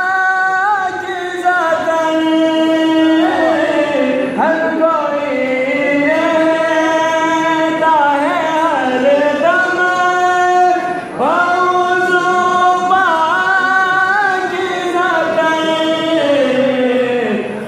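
A man singing a Sufi tarana (devotional anthem) into microphones. He holds long notes and slides between pitches, with a brief pause about eleven seconds in.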